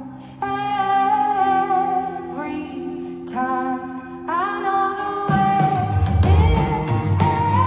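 A live band playing a song, heard from the audience: a woman's singing over guitar in long held phrases, and about five seconds in the bass and drums come in and the music gets louder and fuller.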